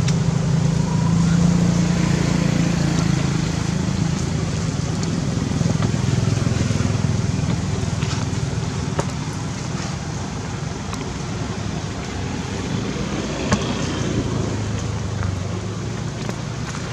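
A steady low motor rumble, like a vehicle engine running nearby, with a few faint clicks.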